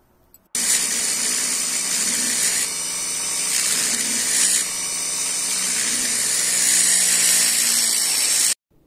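A rotary tool spinning a small cylindrical grinding stone against the inside of chrome-vanadium steel end-cutting pliers' jaws, grinding steadily. It starts suddenly about half a second in and cuts off suddenly near the end.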